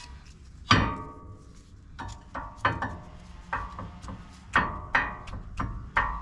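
Irregular sharp metallic knocks and taps, each with a brief ring, about ten of them with the loudest about a second in: hand tools striking metal while working on a truck's four-piston front brake caliper.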